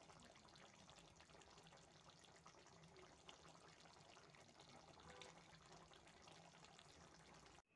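Near silence: faint bubbling of a curry simmering in the pan, with tiny crackles.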